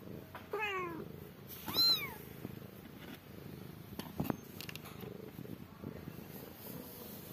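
Kitten mewing twice: a short call falling in pitch about half a second in, then a louder, high-pitched mew that rises and falls about two seconds in. A few faint knocks and rustles follow.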